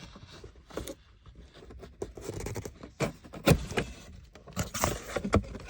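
Toy packaging being opened by hand: uneven scraping and tearing, with several sharp clicks and knocks in the second half.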